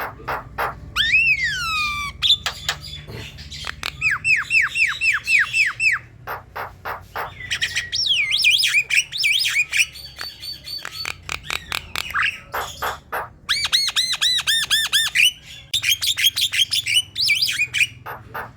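Javan myna in full song: a varied, rapid medley of harsh squawks, sharp clicks, falling whistles and quick runs of repeated chirping notes, broken by brief pauses.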